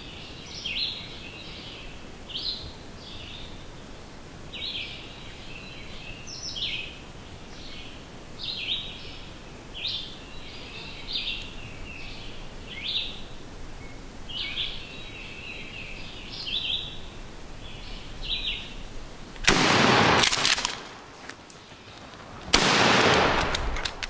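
A songbird singing over and over in short, high chirpy phrases about once a second. Near the end come two loud bursts of noise about three seconds apart, each lasting about a second.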